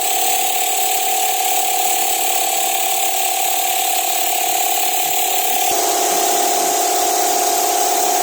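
Steady mechanical noise: a constant whine over an even hiss, shifting slightly in tone about two-thirds of the way through.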